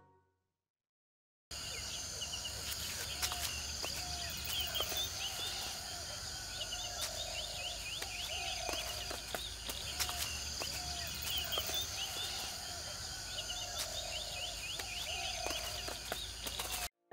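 Forest ambience starting after about a second and a half of silence: birds calling over and over in short chirps and lower warbling phrases, above a steady high-pitched hiss. It cuts off suddenly near the end.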